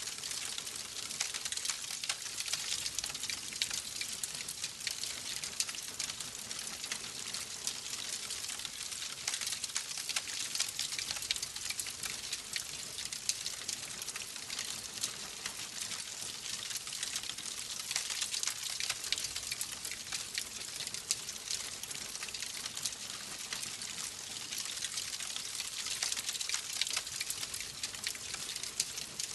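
Wood fire crackling steadily: a continuous hiss with many small, sharp pops and snaps.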